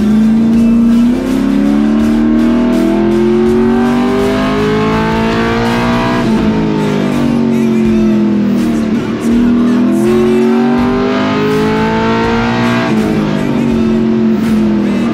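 Pickup truck's LS V8 engine at full throttle, heard from inside the cab. The revs climb for several seconds, fall away about halfway through as the truck slows, climb again, and drop near the end.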